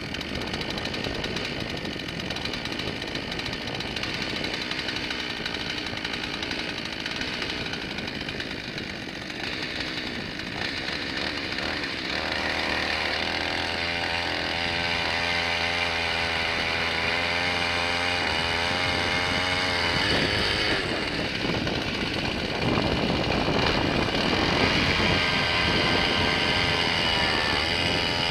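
Two-stroke engine of a Lazer gas-powered ice auger running as it drills a hole through the lake ice. Its pitch wavers up and down with the load from about halfway through, and it gets a little louder near the end.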